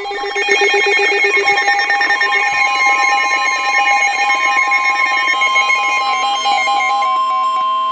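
Electronic alarm tones: several steady beeping tones sound together, some stepping up and down in pitch, with a rapid pulsing texture.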